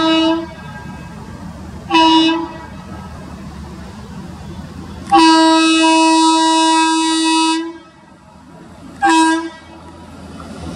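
WAP-7 electric locomotive horn sounding four times: a short blast at the start, another about two seconds in, a long blast of about two and a half seconds about five seconds in, and a last short blast near the end, over the low rumble of the approaching train.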